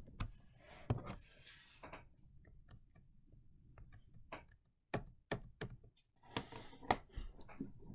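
Quiet, irregular clicking of computer keyboard keys and mouse buttons, with a soft rustling hiss in the first couple of seconds.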